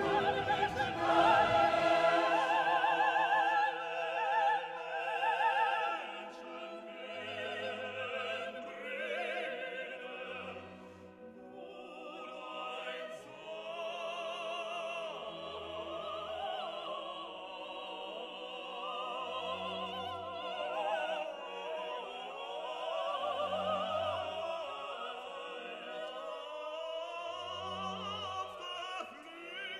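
Background music: operatic singing with vibrato over an orchestral accompaniment.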